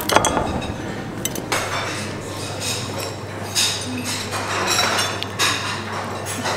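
Metal serving tongs and a china plate clinking at a breakfast buffet, then a utensil scraping and cutting into a slab of honeycomb in several short irregular strokes, over a steady low hum.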